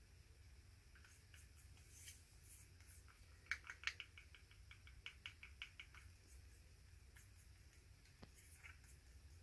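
A stick scraping paint out of a small plastic cup: faint scattered scratches and clicks, with a quick run of a dozen or so light ticks in the middle.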